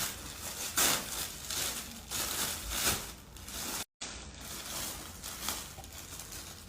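Gift packaging rustling and crinkling as a parcel is unwrapped by hand, in a run of short noisy bursts. It is loudest in the first three seconds and quieter after a brief dropout about four seconds in.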